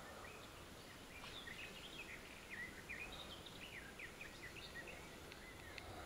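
Small songbird chirping and twittering, a quick run of short high notes and downward-slurred calls starting about a second in, over a faint steady background hiss.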